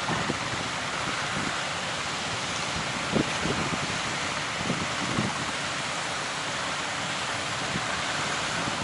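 Sea waves and strong wind: a steady rushing noise of surf, with wind buffeting the microphone in short low thumps a few times.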